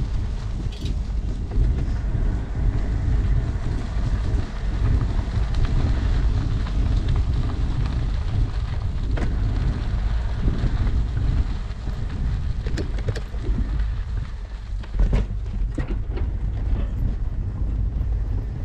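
Wind buffeting an action camera's microphone on a moving bicycle: a steady, loud low rumble. A few short clicks or rattles sound in the second half.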